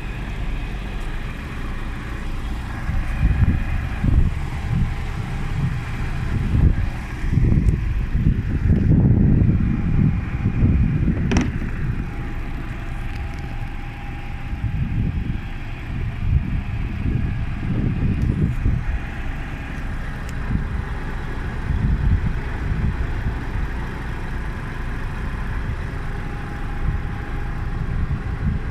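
Low, uneven rumble that swells and fades irregularly, with one sharp click about eleven seconds in.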